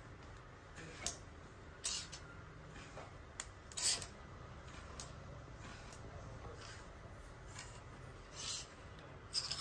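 Clothes hangers scraping and clicking along a metal clothes rail as garments are pushed aside one at a time: about seven short, sharp scrapes at irregular intervals over a low steady hum.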